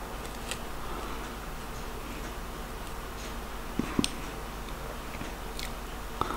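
Quiet room tone with a steady low hum and a few faint, short clicks, the loudest a pair about four seconds in.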